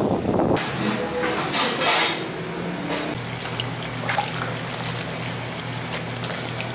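Hand mixing freshly made young radish kimchi (yeolmu kimchi) in a basin of seasoned liquid: wet squelching and sloshing of the leaves and brine. A low steady hum comes in about three seconds in.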